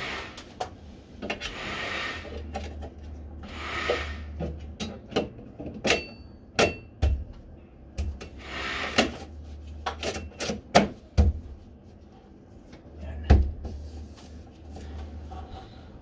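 Cover being fitted by hand onto a Lockwood overhead door closer: a string of sharp clicks and knocks as it is pushed and tapped against the closer body, with rubbing and scraping in between. One click about six seconds in rings briefly like metal.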